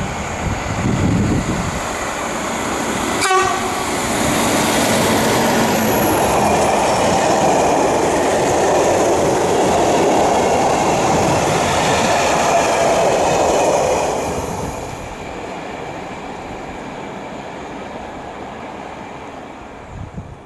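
A freight train of flat wagons passing close by, its wheels running over the rails. There is a brief sharp crack about three seconds in. The train is loudest for about ten seconds as the wagons go past, then fades as it moves away.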